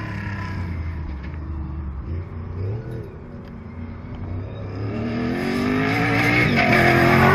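Cross-country rally truck's engine revving hard under acceleration, its pitch climbing, dipping briefly and climbing again as it shifts. It grows louder over the second half as the truck comes closer.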